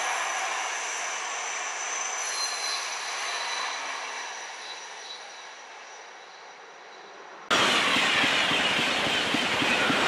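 Two coupled TGV trainsets running away along the track, their noise fading steadily, with a few thin high tones. About seven and a half seconds in, the sound switches abruptly to a TGV Duplex double-deck train passing close at speed: a loud, steady noise of wheels on rail and rushing air.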